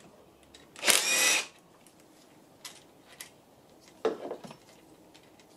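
Cordless drill-driver with a socket running in a short whirr of about half a second, about a second in, undoing a camshaft bearing cap bolt on a 1.0 EcoBoost three-cylinder engine. A few light clicks and a short metallic knock follow as the cap hardware is handled.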